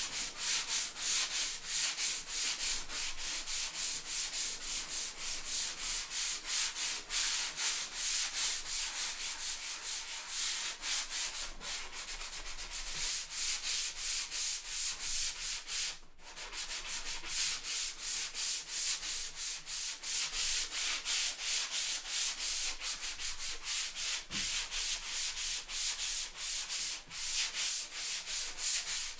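Rusty steel stovepipe section being sanded by hand with sandpaper to strip the rust: a quick, even run of scratchy back-and-forth strokes, with one short break about halfway through.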